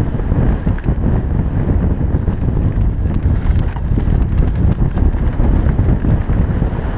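Wind buffeting a helmet-mounted GoPro's microphone over the rumble of a downhill mountain bike's tyres on a dirt trail, with many small clicks and rattles from the bike and loose stones.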